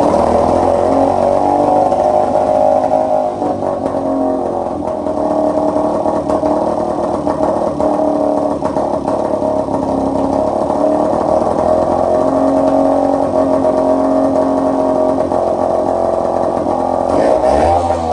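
Small outboard motor running steadily in a test bucket, with its revs shifting briefly near the end.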